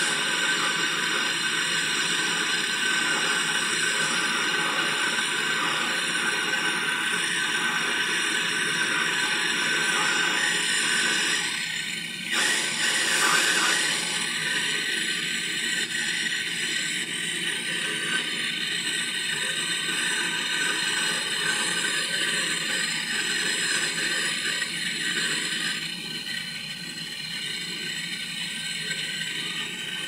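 Handheld gas torch on a disposable cylinder burning with a steady hiss while brazing a joint on refrigerator copper tubing; the hiss dips and swells briefly about twelve seconds in.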